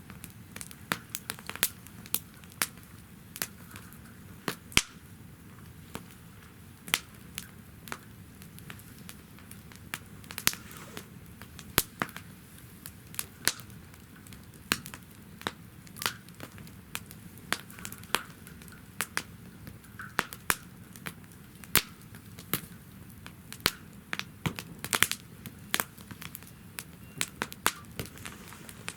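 Wood fire burning in a fire-pit stand, with frequent irregular sharp crackles and pops over a low steady rush of flame.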